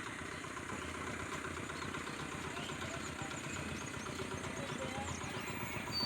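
A vehicle engine idling steadily, with faint bird chirps over it.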